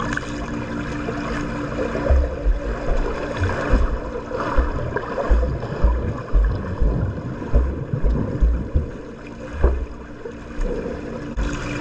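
Swimming pool water sloshing and splashing, with irregular low thumps about twice a second from about two seconds in. A steady low hum sits under it at the start and again near the end.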